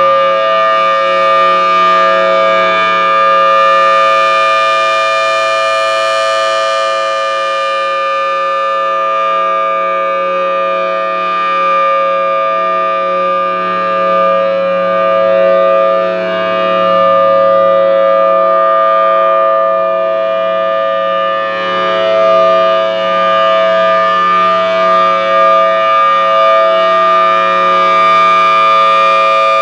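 Federal Signal Thunderbolt 1000T warning siren sounding the Alert signal: a loud, steady two-pitch chord held without a break. It swells and fades slowly as the rotating siren head sweeps around.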